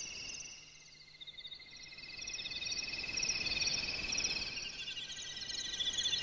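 Several insects trilling at once, each a rapid pulsing chirp at its own pitch, over a soft rushing noise that swells in the middle.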